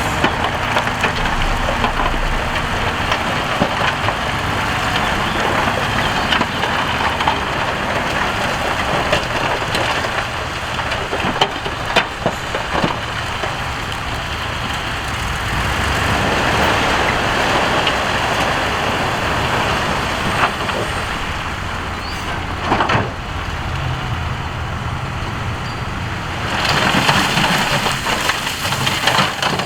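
Diesel engine of heavy earthmoving machinery running under load, with gravel and rock grinding and clattering and occasional sharp knocks of stone on stone or steel. The noise swells again near the end.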